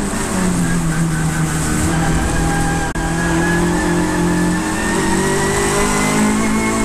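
Racing saloon car's engine heard from inside the cockpit. The engine note drops shortly after the start as the car slows for a corner, then rises steadily as it accelerates out.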